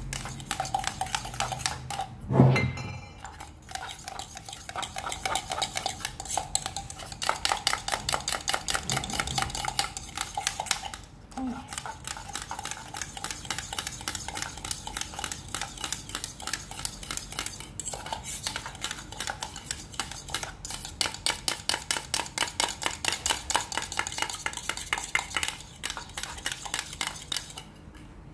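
Metal spoon stirring cocoa in a stainless steel milk jug, clinking rapidly and evenly against the jug's sides. There is one louder knock about two seconds in, and the stirring stops near the end.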